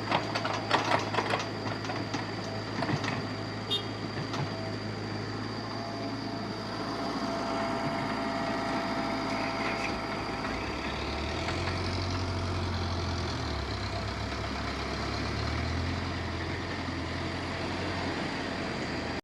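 Engine running steadily, with a few sharp clanks in the first seconds. From about halfway through it runs deeper and a little louder, as if put under load.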